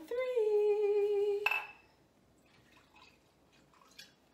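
A woman's voice holding one sung note for about a second and a half, cut off by a sharp clink with a brief ring. A few faint ticks follow.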